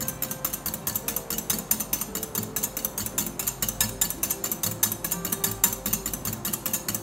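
Egg whites being beaten by hand in a bowl, the beater clicking against the bowl in rapid, even strokes, about six a second.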